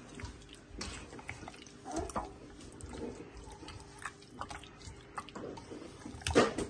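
Kitchen work sounds: scattered light clicks and taps, with a louder knock near the end.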